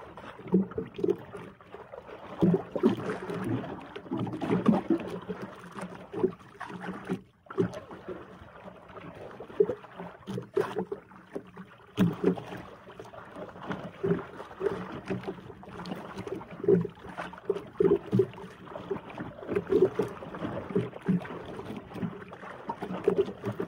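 Water sloshing and slapping against the hull of a small outrigger fishing boat, with many irregular knocks and bumps.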